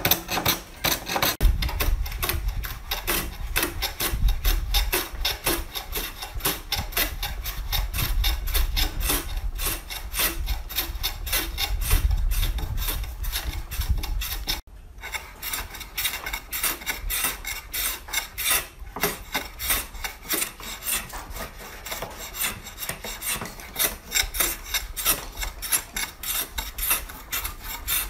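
Small wooden hand plane cutting along the edge of a board in quick, repeated back-and-forth strokes, each stroke a rasping swish as the blade takes off a shaving. The strokes pause briefly about halfway through.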